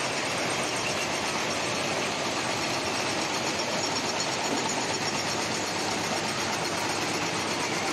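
Steady, even din of a fresh-chili washing, chopping and sorting line running, with its conveyors and washer machinery going continuously.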